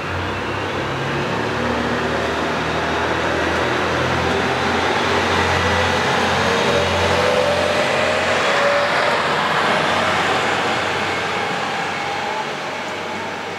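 KiHa E130-series diesel railcar pulling away: its engine revs up under load and rises in pitch as it accelerates. It grows louder as the car passes, peaking about two-thirds of the way through, then fades as it leaves.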